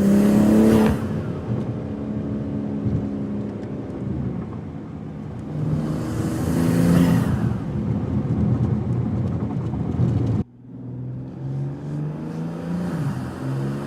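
BMW G80 M3's twin-turbo inline-six through a Fi EXHAUST valvetronic catback exhaust, accelerating hard with two loud surges. It cuts off abruptly about ten seconds in, and the engine then carries on at a lower level, its pitch stepping up and down.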